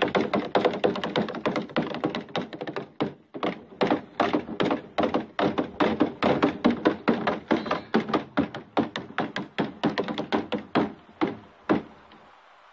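Wet pants frozen stiff in the cold being drummed on: a rapid, uneven run of hollow knocks, several a second, like knocking on a piece of wood. The drumming stops near the end.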